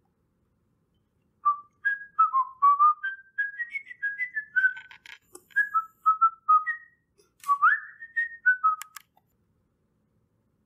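A person whistling a short, quick tune of separate notes, with a rising slide near the end, starting about a second and a half in and stopping about nine seconds in; a few sharp clicks fall among the notes.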